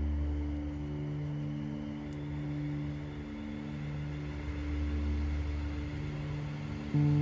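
Background electronic music: low sustained synth chords that shift every second or so. Near the end a louder section comes in suddenly, with plucked guitar.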